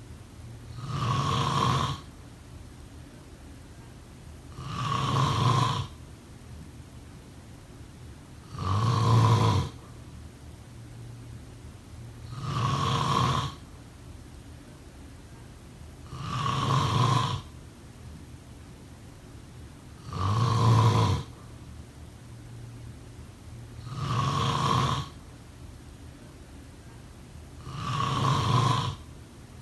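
A person snoring, eight snores about four seconds apart. Each snore swells over a second or so and then cuts off.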